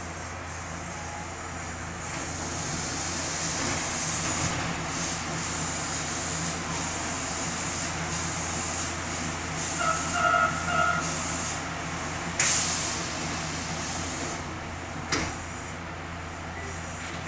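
Running noise heard inside a Nagoya subway 3000-series train car in motion: a steady rumble and rush of wheels on rail that swells a couple of seconds in. There is a brief pulsing high tone about ten seconds in, a sudden burst of air hiss a little after twelve seconds, and a sharp click near fifteen seconds.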